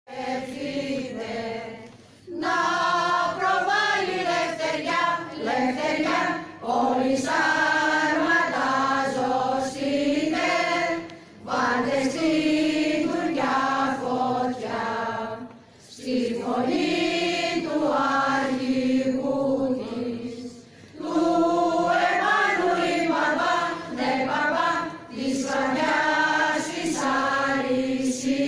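A choir singing in long, slow phrases, each a few seconds long and separated by a brief pause for breath.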